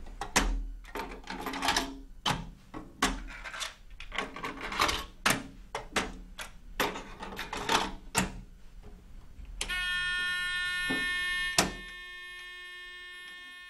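Cassette tapes handled and loaded into a twin-deck interview tape recorder: a run of plastic clicks and clatters as the tapes go in and the decks are shut. Then the recorder's start-of-recording signal, a loud steady buzzing beep of about two seconds, is cut off by a sharp click, with a fainter tone fading out after.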